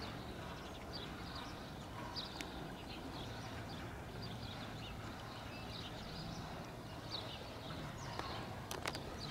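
Faint open-air ambience: scattered short, high bird chirps over a low steady rumble, with a couple of sharp clicks near the end.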